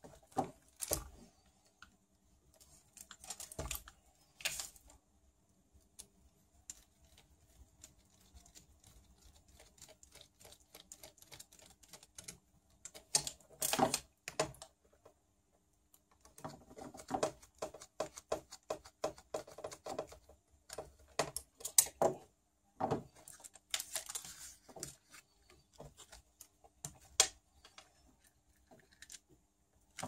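Irregular small clicks, taps and rattles of a screwdriver and small plastic and metal parts being handled while a steering hub is fitted to an RC buggy, coming in scattered clusters with quiet gaps.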